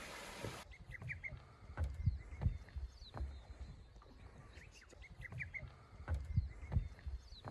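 A rushing mountain stream for the first half-second, cut off sharply, then small birds chirping in short repeated phrases over irregular low thumps of wind buffeting the microphone.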